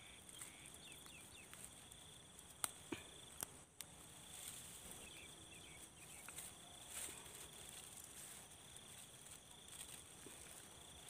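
Quiet scene: a few sharp metal clicks from a wire spring rat trap being set by hand, between about two and a half and four seconds in, over a faint steady insect drone.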